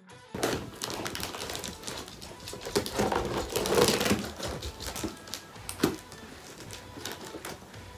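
Scissors snipping and scraping at the packing tape on a cardboard box: a run of irregular clicks and rustles, busiest about halfway through.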